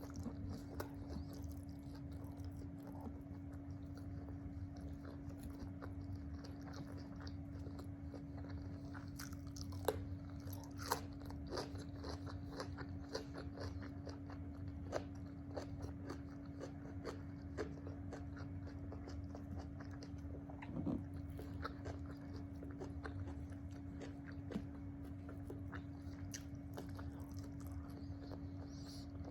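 Close-miked eating sounds: a person biting and chewing crunchy food, with many small crackles and smacks, over a steady low hum.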